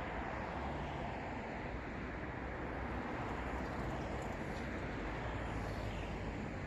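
Steady city road traffic: a continuous wash of car engine and tyre noise.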